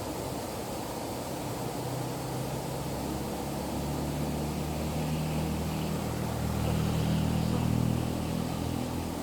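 Steady rush of fast-flowing stream water, with a low engine hum that comes in about two seconds in, grows louder near the end and then drops away.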